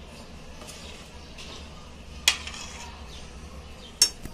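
Steel ladle stirring a thick curry in a stainless steel pot, clinking sharply against the pot twice: once about two seconds in and again near the end.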